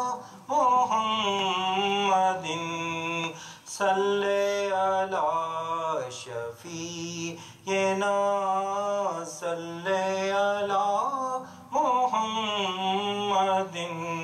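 A man singing an Urdu naat, a devotional poem in praise of the Prophet, without instruments, in long held and ornamented melodic phrases with brief breaths between them.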